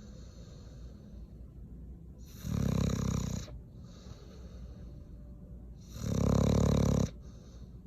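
An animal snoring: two long, low snores about three and a half seconds apart, each lasting about a second, with quieter breathing between them.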